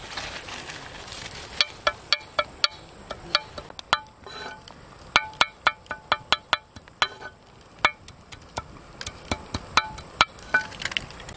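A machete blade chopping chili peppers on a flat stone: sharp, irregular knocks of metal striking stone, some with a brief ring. They begin about a second and a half in and go on with short pauses.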